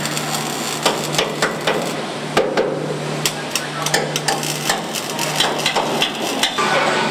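Car-body assembly line: irregular sharp metallic knocks and clanks, several a second, over a steady low machinery hum.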